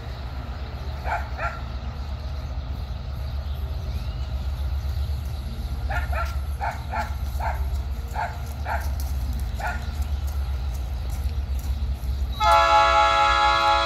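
Diesel freight train approaching, its low rumble slowly growing louder, while a dog barks in short bursts. About twelve seconds in, the locomotive's air horn sounds loudly as a chord of several steady tones, the loudest sound here.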